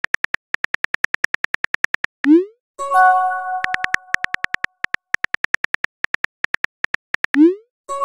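Simulated phone keyboard clicks in a rapid run, then a rising whoosh of a text message being sent and a ringing chime-like message tone. The clicking starts again, and a second send whoosh comes near the end.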